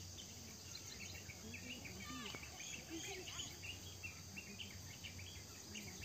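Faint outdoor ambience of many short, high chirps repeating irregularly, with one longer gliding call a little over two seconds in.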